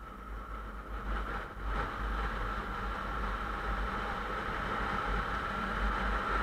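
Motorcycle engine running at highway speed with low wind rumble on the bike-mounted microphone. The sound grows louder about two seconds in and then holds steady.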